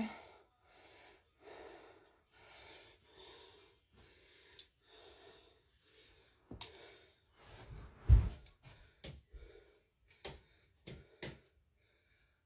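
A person breathing audibly, a slow series of breaths, followed by a low thump about eight seconds in and several sharp taps near the end.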